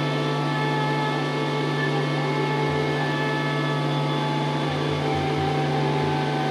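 Experimental drone music: a dense bank of steady held tones over a strong low hum, with a low, uneven throbbing pulse that comes in about halfway through.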